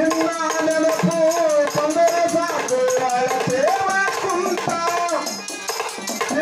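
Devotional bhajan music: a held, slowly moving melody line over a steady beat of hand-drum strokes and jingling rattle percussion.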